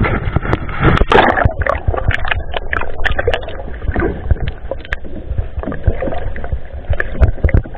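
Sea water sloshing and splashing around a small outrigger fishing boat and a camera dipped beside its hull, with a low rumble and many short knocks.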